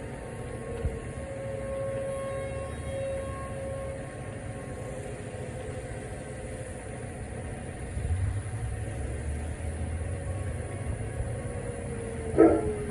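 Distant Federal Signal outdoor warning sirens (T-128s and a P-10) sounding a steady tone during a test, swelling and fading as the rotating sirens turn, over a low rumble. A brief loud sound cuts in near the end.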